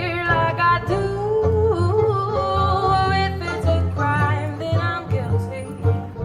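Background music: a country-style song with guitar and a melody line that slides and bends in pitch.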